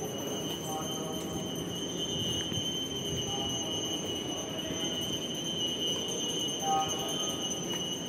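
Temple bells ringing continuously as a priest performs aarti at the shrine, a steady high ringing over a dense rattling clatter.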